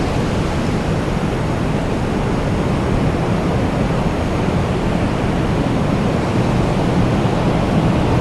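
Wind blowing steadily, a deep even rushing noise with no single gust standing out, growing a little louder near the end.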